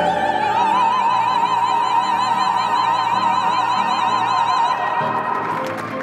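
Operatic singing by a group of performers: a soprano holds one long high note with wide vibrato, with other voices and music underneath, and releases it near the end.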